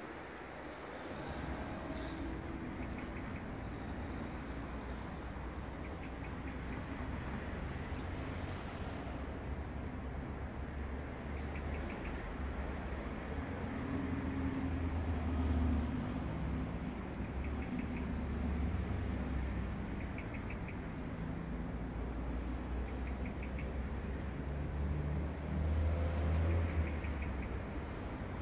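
A steady low rumble that swells twice, around the middle and near the end, with a small bird's short chirping trill repeating every four to five seconds.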